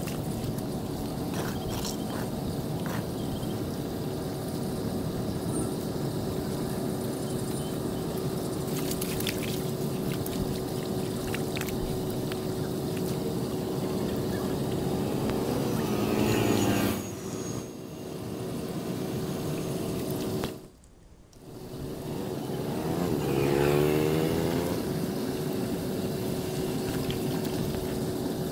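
Floodwater draining into a street storm drain, heard as a steady rush of water under a constant engine hum. About two thirds of the way through, a vehicle passes with a rising then falling pitch, and the sound cuts out briefly twice.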